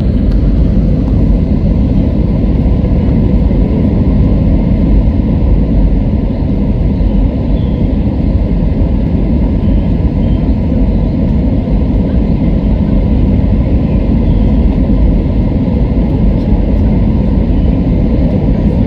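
Cabin noise of an Airbus A320-212 airliner during landing: engine and airflow noise as a steady, loud low rumble, with faint steady hums over it.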